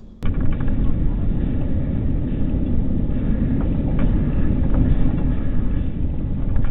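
Car interior rumble from a dashcam: engine and road noise from a car driving slowly, heavy in the low end, with a few light clicks. It starts abruptly at a cut.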